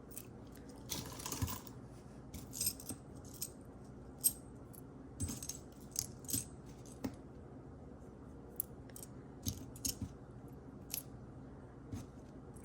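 Pieces of metal costume jewelry, mostly earrings, clinking and jangling as they are picked through and set down: scattered short clicks, with a longer jangle about a second in.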